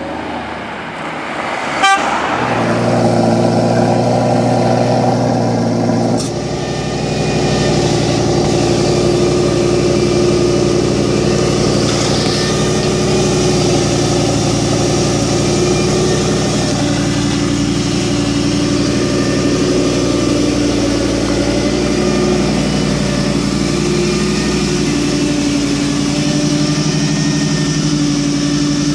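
Lamborghini Gallardo LP570-4 Superleggera's V10 engine idling steadily through its twin exhausts, with a sharp click about two seconds in.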